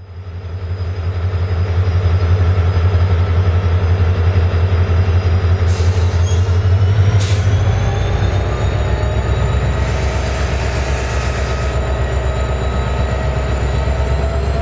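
WDG4 diesel locomotive's two-stroke V16 turbocharged engine running, a loud steady low drone with a faint slowly rising whine above it, fading in over the first two seconds and dropping a little lower in pitch about halfway through. Two short hisses come about six and seven seconds in, and a longer hiss around ten seconds.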